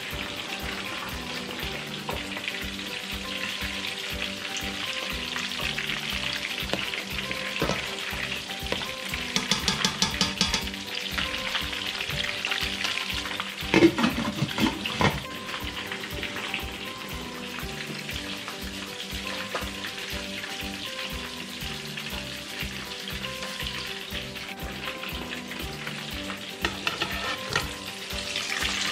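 Fish frying in a pan of hot oil with a steady sizzle, beside a pot of sinigang broth cooking on the stove. There is a quick rattle about ten seconds in and a loud clank about fourteen seconds in as the pot's glass lid is lifted.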